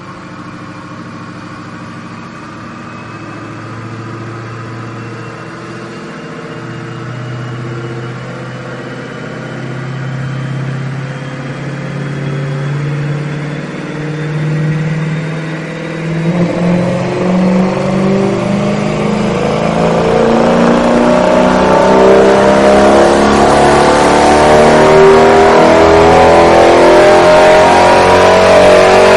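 2008 Dodge Challenger SRT8's 6.1-litre Hemi V8 through a Magnaflow exhaust, run under load on a chassis dyno, its engine note climbing slowly in pitch and getting steadily louder, loudest near the end.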